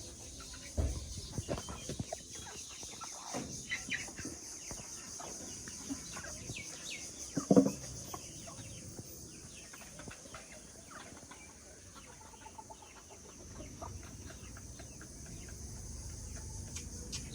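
Chickens clucking, with many short scattered ticks and one louder call about seven and a half seconds in, over a steady high hiss.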